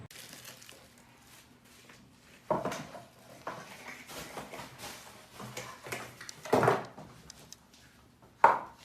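Close handling noises from small objects being picked up and set down: scattered clicks, knocks and scrapes, the loudest about two and a half, six and a half and eight and a half seconds in.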